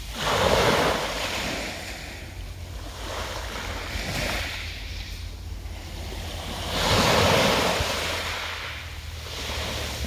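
Small sea waves washing up a pebble beach and drawing back. Two strong surges, about a second in and around seven seconds in, with smaller ones between.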